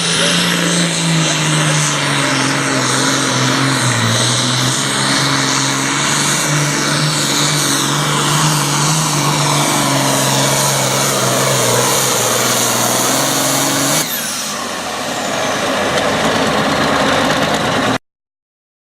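Super Farm class tractor's diesel engine running hard at high revs, with a steady, slightly dipping engine note. About fourteen seconds in the sound cuts abruptly to a quieter engine sound, and everything stops dead near the end.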